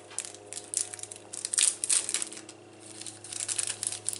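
Plastic wrapper crinkling and tearing as it is peeled off a pack of playing cards, in short crackles with a lull a little past the middle. A steady low hum runs underneath.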